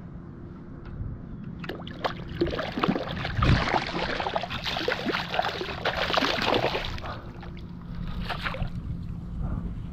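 A hooked pompano thrashing and splashing at the water's surface close by: a run of irregular splashes from about two seconds in until about seven seconds, over a faint steady low hum. The fish is still fighting and not ready to be landed.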